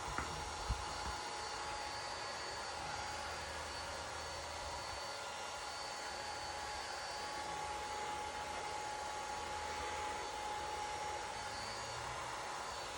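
Heat gun running steadily on a low setting: an even airflow hiss with a steady whine, used to soften and shrink vinyl wrap film. A light knock comes about a second in.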